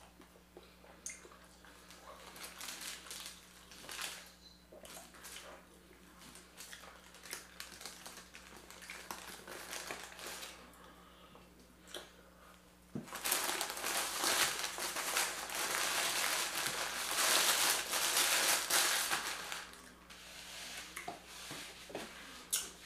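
Paper sandwich wrapper being crinkled and folded around a leftover Subway sub, loudest for several seconds about halfway in, after lighter rustles and small clicks of handling.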